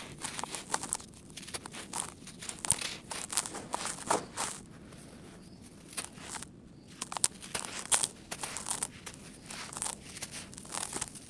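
Hands crumbling and crushing dry lumps of sandy material into loose sand, making irregular gritty crunches and crackles, with a short lull about five to six seconds in.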